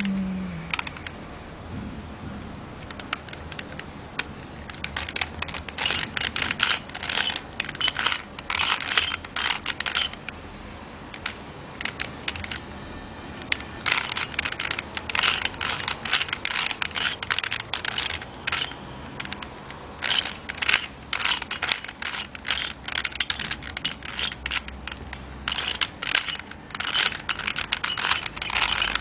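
3x3x3 Rubik's Cube being turned rapidly by hand: bursts of quick plastic clicking and clacking as the layers are twisted, broken by short pauses between sequences of moves.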